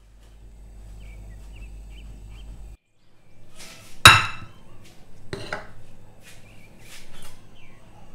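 A small bowl of rice set down on a dinner plate with one sharp knock about four seconds in, followed by several lighter taps and clatters as the rice is turned out of the bowl. A low hum comes before it.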